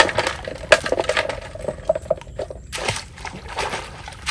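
Water sloshing and pouring in a run of irregular splashes as a xà di fish trap is lifted out of the water and emptied.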